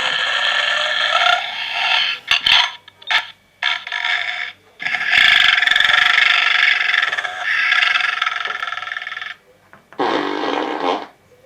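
Santa snoring in long drawn-out breaths with a raspy, pitched tone: a snore of about two seconds, a few short snorts, one long snore of about four seconds, then a short one near the end.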